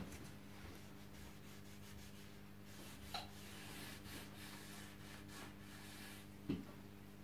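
Faint, repeated scrubbing of a brush on a bare wooden gun stock, stripping the old finish with an acid cleaning foam rather than sanding. A short knock about six and a half seconds in, over a steady low hum.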